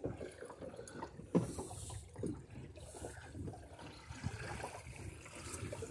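Faint water lapping and trickling along a small sailboat's hull while it sails downwind in a light breeze, with a brief, louder knock about one and a half seconds in.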